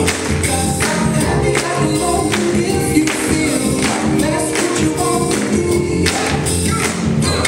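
Music with singing voices over a steady beat.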